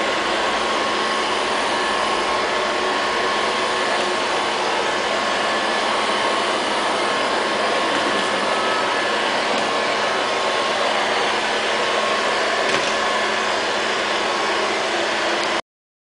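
LL-302 robot vacuum cleaner running on a tile floor: the steady whir of its suction motor and brushes, with a faint steady whine over it. It cuts off suddenly near the end.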